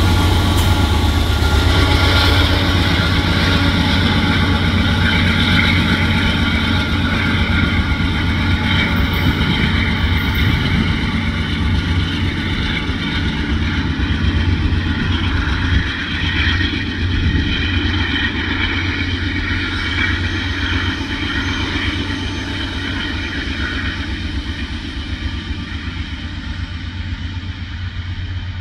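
Norfolk Southern GE AC44C6M diesel-electric locomotive pulling away under power, with a steady low engine drone and the noise of steel wheels on rail. The sound slowly fades as it recedes.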